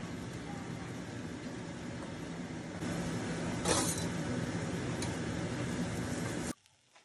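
Steady hissing hum of a gas hob with a lidded pan of curry cooking on it, with a brief louder hiss a little past halfway; the sound cuts off suddenly near the end.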